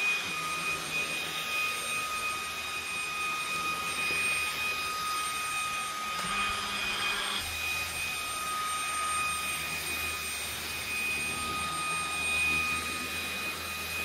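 Dreame V11 cordless stick vacuum running steadily, a high-pitched motor whine over rushing air, as its small brush head is pushed over a quilted mattress. A low hum joins about seven seconds in.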